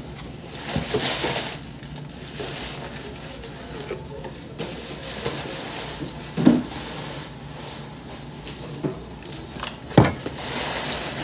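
Packaging being handled during unboxing: paper and plastic rustling and crinkling, with two sharp knocks of something set down, about six and a half and ten seconds in, the second the loudest.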